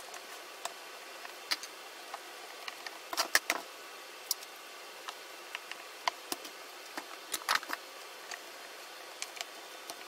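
Scattered sharp clicks and knocks of a hand screwdriver and screws working against a shop vac's plastic motor housing, with the loudest clatter about three and a half and seven and a half seconds in.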